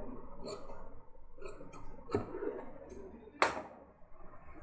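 Fabric being shifted and smoothed by hand on a cutting table: soft cloth rustling with a few light clicks and one sharper tap about three and a half seconds in.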